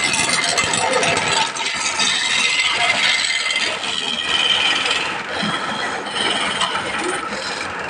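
Woodworking noise: a tool scraping and rattling against wood, continuous and fairly loud.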